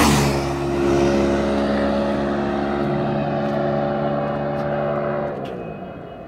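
KTM RC 390's single-cylinder engine coming off a rev peak and then holding steady revs for about five seconds. The throttle then closes and the engine note drops away.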